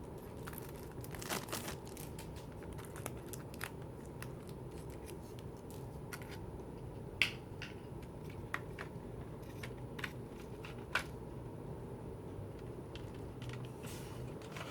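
Album packaging and photo cards being handled: scattered crinkles, taps and clicks of paper and plastic over a steady low hum.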